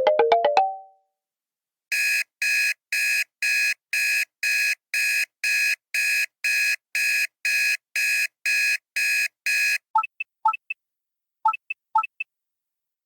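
Android phone sound effects played one after another: a short multi-note chime at the start, then an electronic alarm beep repeating about twice a second for about eight seconds, then a few brief high chirps near the end.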